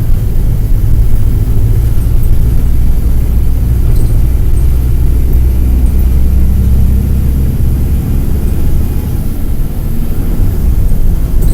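Mercedes-Benz OF-1722M bus's OM-924 LA diesel engine running under way: a steady low drone that eases off about eight seconds in and picks up again near the end.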